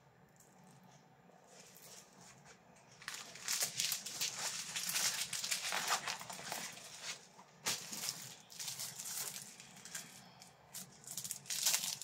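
Plastic wrapping on diamond painting canvas packs crinkling as they are handled. It starts about three seconds in, with a sharp snap near the eight-second mark and more crinkling near the end.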